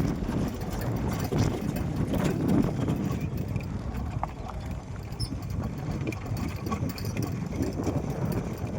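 Steady rumble of a moving ride with wind buffeting the microphone.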